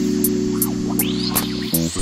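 Channel logo music: held chords over a bass line with a steady ticking beat, the chord changing near the end.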